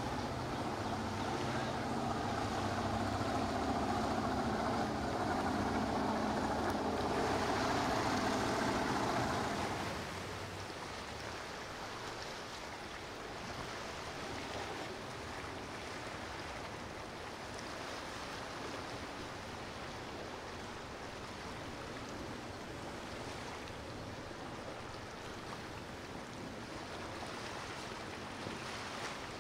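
A powerboat running past at speed, its engine droning under the rush of water and wind, cut off abruptly about ten seconds in. After that, a steady even hiss.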